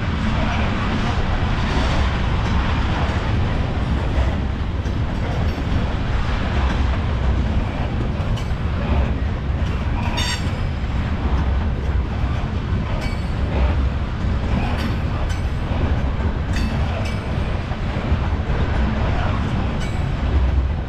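Freight train of tank cars rolling past: a steady heavy rumble with scattered sharp clicks, and a brief high wheel squeal about halfway through.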